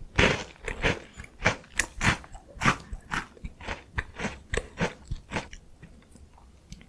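Close-miked crunchy chewing of a crisp Korean chocolate biscuit snack: a loud bite at the start, then steady crunching chews about two to three a second, trailing off near the end.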